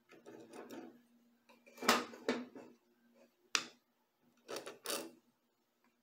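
Handling clatter of a clear plastic centre-finding square and a wooden blank being turned, set down and marked on a metal worktop: several short knocks and scrapes, the loudest about two seconds in and a quick pair around five seconds in. A faint steady hum lies underneath.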